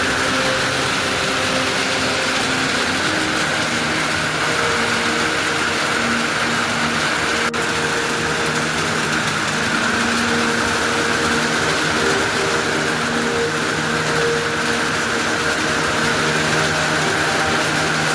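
Heavy rain falling in a steady, loud hiss, with a soft background music melody of held notes underneath.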